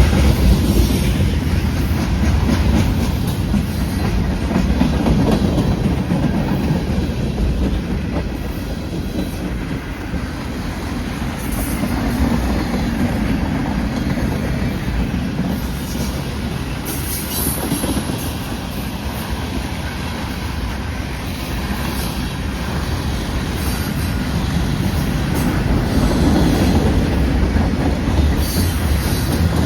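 Freight cars rolling past, a steady wheel-on-rail rumble with clickety-clack over the rail joints and brief high-pitched wheel squeals.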